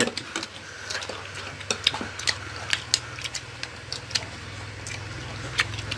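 A person chewing cooked root close to the microphone: irregular small clicks and smacks, several a second, over a low steady hum.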